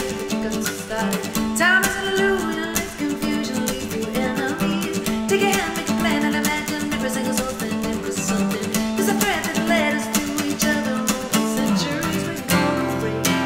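Acoustic guitar strummed with a woman singing a song.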